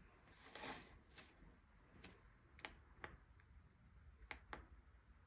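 Near silence with a handful of faint, short clicks scattered a second or so apart.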